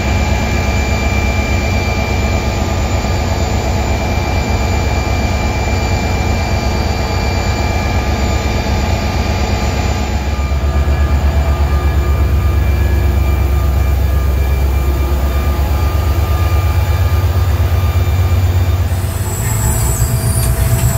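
EMD GT36HCW diesel-electric locomotive (class 060DS) standing with its two-stroke diesel engine running: a steady, loud low drone with a thin high whine above it. The drone grows heavier about halfway through, and near the end the sound changes to how it is heard from inside the cab.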